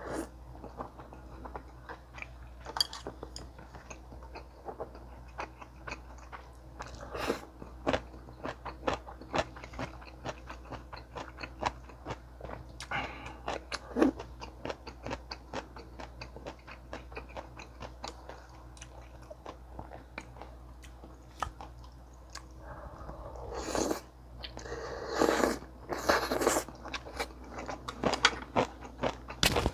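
Close-miked eating: chewing with wet mouth clicks and crunchy bites, the loudest crunching coming in a run about three quarters of the way through, over a steady low hum.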